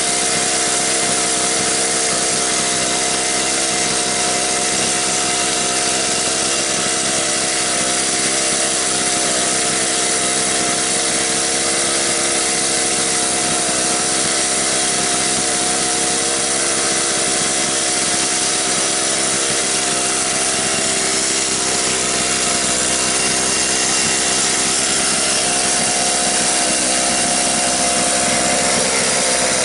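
Small engine of a home-built quarter-scale RC car running continuously under way, its pitch wavering slightly as the throttle changes.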